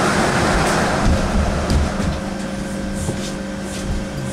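Cabin sound inside a KAMAZ-6282 electric bus standing at a stop: a rushing noise that eases off about two seconds in, leaving a steady low hum with a few held tones.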